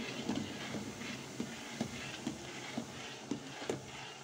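A metal spoon knocking and scraping against a stainless steel pot while stirring hot water, about twice a second, over a low steady hum. The sugar and citric acid are being stirred into the water to dissolve them into syrup.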